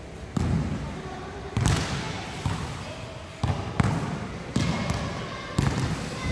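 Basketballs bouncing on a hard indoor court, about six sharp thuds at uneven intervals, each ringing on in the echoing hall.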